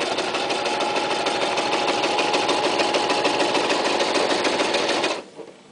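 Toyota Super Jeans J34 sewing machine running at a steady, fast speed, the needle mechanism clattering in a rapid even rhythm as it stitches two layers of thin leather. It stops abruptly about five seconds in.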